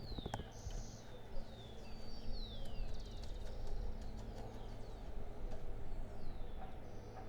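Street ambience: birds calling with repeated short chirps that slide downward in pitch, over a steady low rumble of traffic, with a few sharp clicks.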